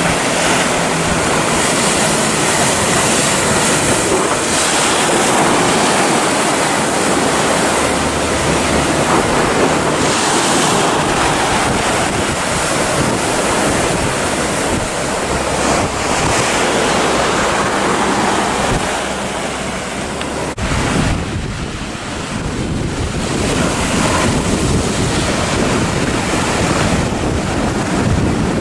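Heavy ocean surf breaking continuously, with wind buffeting the microphone; the sound shifts abruptly about twenty seconds in.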